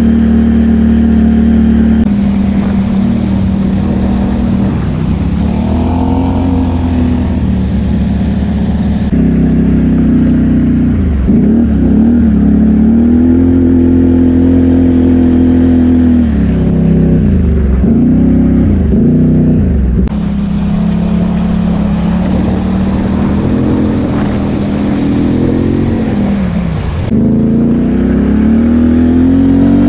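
ATV engine revving up and down as it drives through deep water on a flooded trail, with water splashing around the machine. The engine pitch climbs and drops several times, dipping sharply near the end before picking up again.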